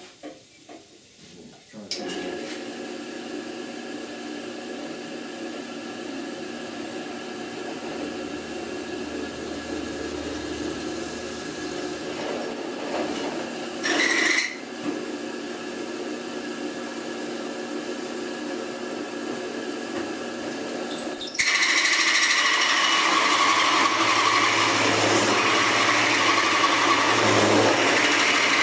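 Drill press switched on about two seconds in and running steadily, with a couple of brief louder noises midway. About three-quarters of the way through, a hole saw bites into the steel piece and a loud, continuous metal-cutting noise takes over as the plug is cut.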